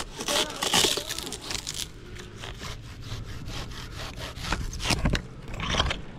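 Hand pruning saw cutting through the fibrous base of a palm frond in quick back-and-forth strokes, busiest in the first two seconds.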